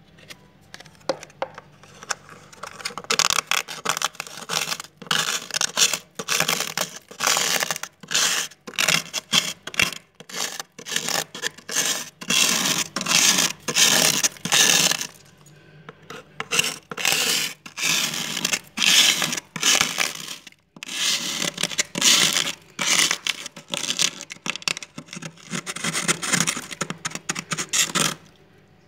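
Thick frost being scraped off a freezer wall by hand, in many quick rasping strokes with a brief lull about halfway through.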